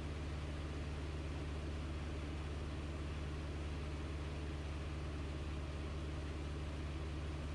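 Single-engine propeller light aircraft in cruise flight, its engine and propeller droning steadily with a deep, even hum under a hiss of airflow, as heard inside the cockpit.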